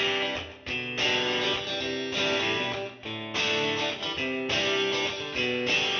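Instrumental background music led by a guitar playing chords, which change about once a second.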